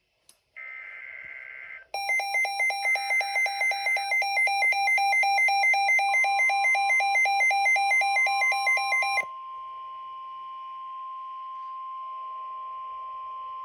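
Midland WR-120 weather radio alerting to a severe thunderstorm warning. A short warbling data burst is followed, about two seconds in, by the radio's loud, fast-pulsing alarm beep, which stops abruptly about nine seconds in. From about six seconds in, the broadcast's long, steady warning alarm tone sounds and holds to the end.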